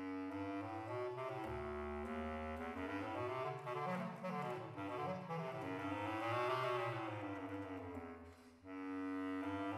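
Solo bass clarinet playing a phrase from an orchestral excerpt, its low notes rising and falling in pitch, with a brief break near the end before the next phrase starts.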